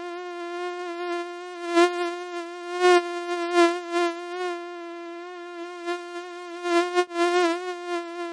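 Mosquito wings buzzing in a steady, high whine that holds one pitch with a slight waver and a few brief louder swells.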